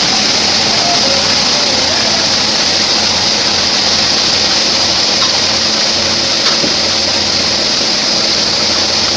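Homemade sawmill bandsaw running through trembesi (rain tree) wood, a loud, steady hiss with a low machine drone underneath.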